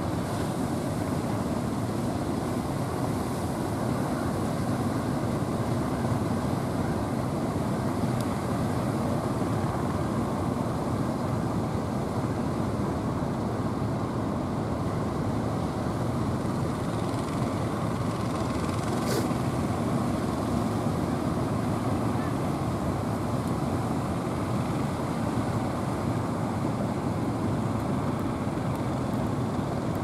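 Steady rush of surf and wind on the microphone, with the engines of outrigger fishing boats running through the waves underneath.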